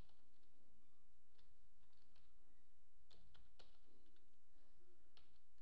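Keystrokes on a computer keyboard, a handful of light clicks with pauses between them, over a low steady hum.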